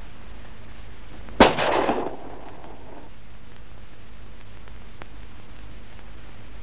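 A single sharp bang about a second and a half in, followed by a rumbling, echoing tail that dies away over about a second and a half, over a steady soundtrack hiss.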